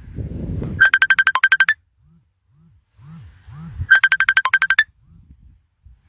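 Phone ringing with an incoming call: two bursts of rapid trilling beeps, each just under a second long and about three seconds apart.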